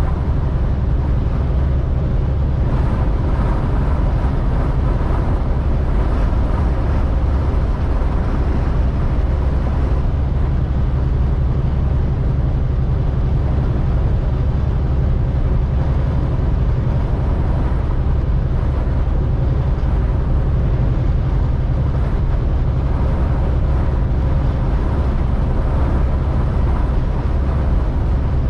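Steady low rumble inside a semi-truck's cab, with strong wind noise against the truck.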